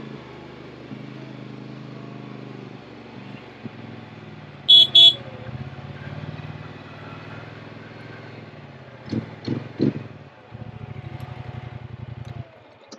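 Polaris Sportsman XP 1000 ATV's twin-cylinder engine running at low speed, with two short beeps of the ATV's horn about five seconds in. The engine sound drops away shortly before the end.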